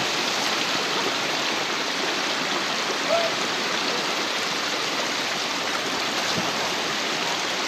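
Steady rush of flowing river water, an even hiss that doesn't change, with a faint brief voice about three seconds in.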